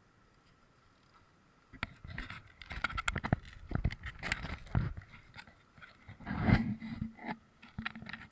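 Freshly caught fish being handled on stones: a run of irregular wet slaps, scrapes and rustles, starting about two seconds in, with a few louder knocks.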